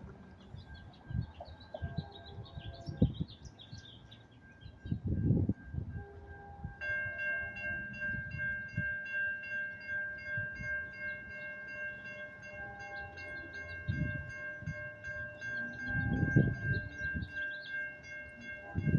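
Grade-crossing warning bell starting to ring about seven seconds in, a steady rapid ringing that signals an approaching train. Gusts of wind hit the microphone several times, and birds chirp near the start.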